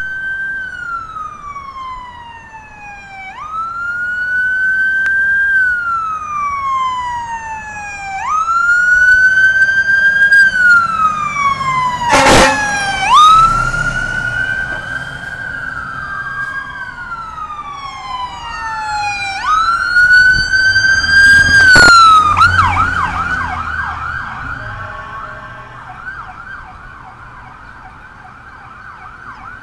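Emergency vehicle sirens from a passing fire engine and the ambulance following it: an electronic siren wailing up and down every few seconds, loudest as the engine goes by. About three-quarters through, a fast yelp takes over and fades near the end. Two short, sharp sounds cut through, near the middle and again shortly before the yelp starts.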